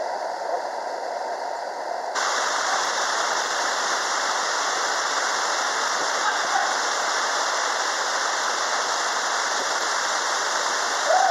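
Steady rushing noise, which suddenly gets louder and brighter about two seconds in and then holds even.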